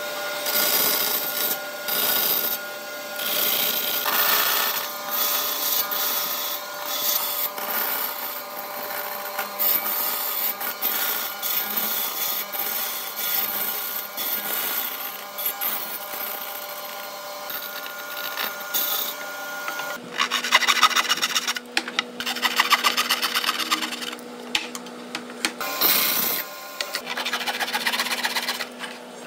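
Band saw running with a steady whine as it cuts into a wooden board. About twenty seconds in it gives way to a hand saw cutting off protruding wooden ends flush, in quick back-and-forth strokes.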